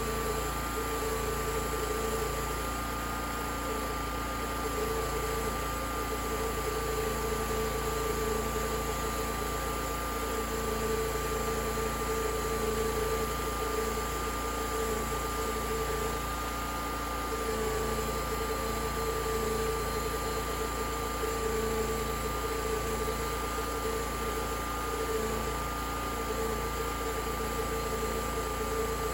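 Homemade portable sawmill running steadily: a constant mechanical drone with a steady high tone through it.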